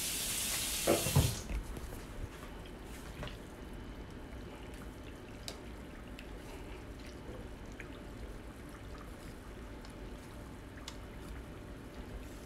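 Water pouring into a steel pot of flour batter, cut off suddenly about a second in. Afterwards only a few faint light clicks.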